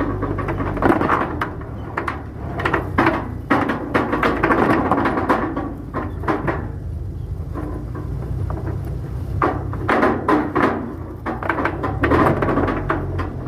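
Irregular knocks and clatter of hand work on the lead-sinker line of a purse seine net, over a steady low hum.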